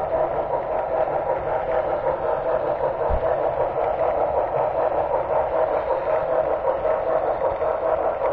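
HO scale model train running along the track: a steady whirring rumble of wheels on rail and motor, heard close up from a camera riding on the train, with a soft low bump about three seconds in.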